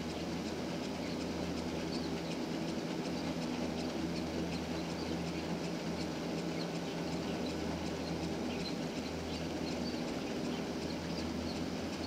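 Müller four-seat gondola lift running: a steady, even hum from the moving haul rope and line equipment, with several low tones held constant throughout.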